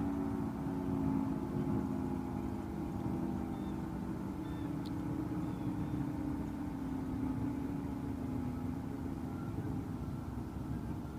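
Federal Signal 3T22 three-tone outdoor warning siren sounding for a fire, its several tones held together as one steady chord that slowly fades over the last few seconds.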